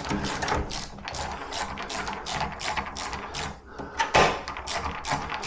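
Ratchet screwdriver clicking rapidly as screws are driven into the door latch, with a louder knock about four seconds in.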